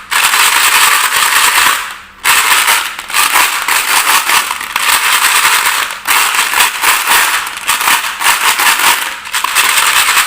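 Marbles rolling and clattering down a wooden marble run: a dense rattle of many small clicks that starts abruptly, fades away, and starts again with each new run, about three or four times.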